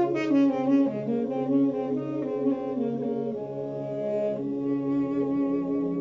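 Armenian duduk played solo: a melody of held notes with slides between them, over a steady low drone.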